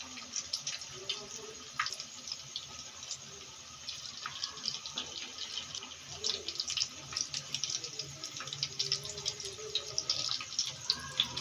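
Potato-and-bread kababs frying in hot oil in a pan: a steady sizzle thick with small crackling pops.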